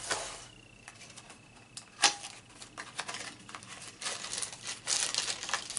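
A cardboard Kershaw knife box being handled and opened: packaging rustling, a sharp click about two seconds in, then scattered rustles and ticks that grow louder near the end.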